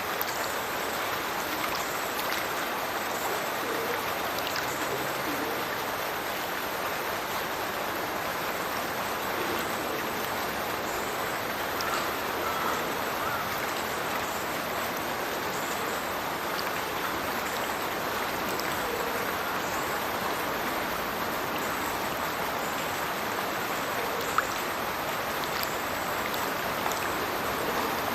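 Water pouring from a culvert and splashing into a river below: a steady rush of falling water, with a few brief, sharper splashes.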